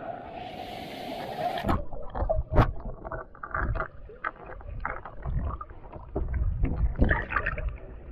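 Rushing of a waterfall into its pool, heard above the surface for about the first second and a half. Then the camera goes under and the sound turns muffled: a low underwater rumble and sloshing with scattered knocks and clicks.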